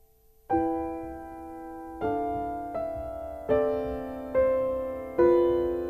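Slow piano music beginning about half a second in: single chords struck about once a second or a little slower, each left to ring and fade before the next.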